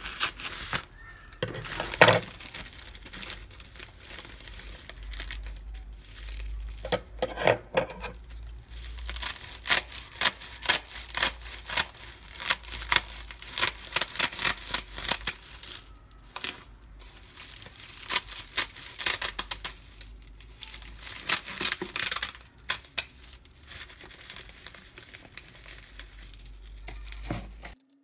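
Scissors snipping through sheets of dry roasted seaweed, with the brittle sheets crackling and crinkling as they are cut and handled, including runs of rapid snips.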